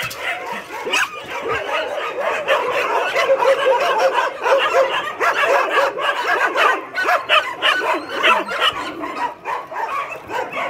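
Many dogs barking and yipping at once in a dense, overlapping chorus.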